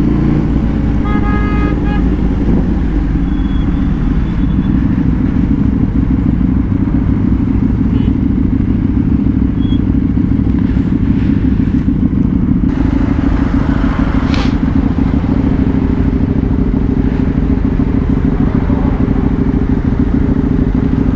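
Sport motorcycle engines running steadily at road speed during a group ride, heard from the rider's own bike as a continuous low drone, with a short pulsing tone about a second in.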